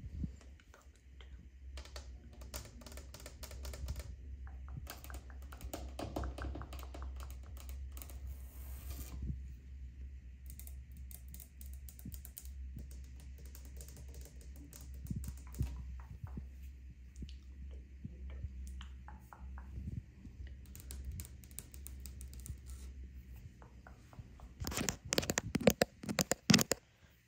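Long fingernails tapping and scratching on hard and plastic surfaces: a plastic-wrapped toilet-paper roll, then a plastic toilet seat lid. The sound comes in quick clusters of clicks, with a louder run of rapid tapping near the end.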